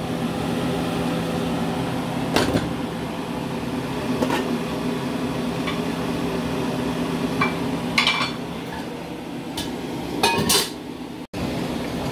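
Light clinks and knocks of cookware, a glass lid clattering onto the rim of an enamel pot, the loudest about eight and ten and a half seconds in, over a steady background hum.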